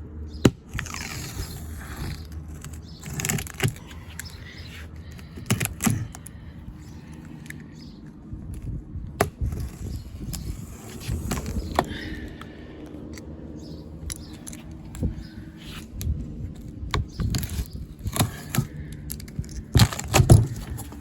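Cardboard shipping box being opened and unpacked by hand: scraping, crackling and irregular knocks of cardboard and packed parts being handled, with a burst of louder knocks near the end.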